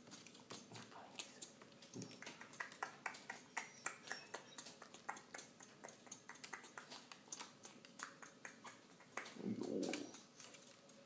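African grey parrot clicking rapidly during a courtship display: an irregular run of short, sharp clicks, several a second. A short low sound about nine seconds in.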